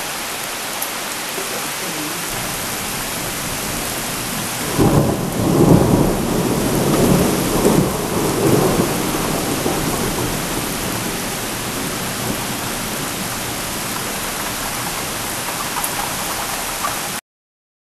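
Steady rain hiss, with a thunderclap breaking in about five seconds in and rolling in several surges for about five seconds before fading back under the rain. The sound cuts off suddenly near the end.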